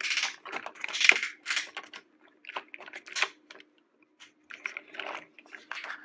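Hard plastic toy construction trucks handled by hand: irregular clicks and clacks as the toy crane's grabber arm is moved and the plastic logs on its trailer are taken hold of.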